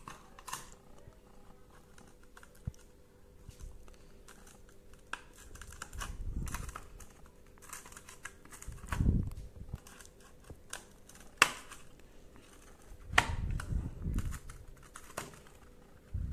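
Scattered small plastic clicks and taps, with a few dull handling bumps, as a dishwasher's control circuit board is fitted back into its plastic front-panel housing.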